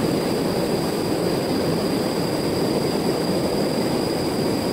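River water rushing steadily over rocks, a swollen, fast current after heavy rain.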